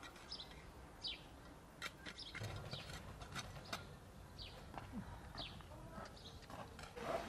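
Small birds chirping in short, high notes that fall in pitch, several times, over the scrapes and knocks of a shovel digging in dry, clumpy soil.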